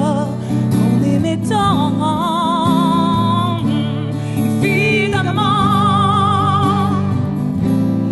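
A woman singing a slow song with long held notes and a wide vibrato, accompanied by a strummed acoustic guitar.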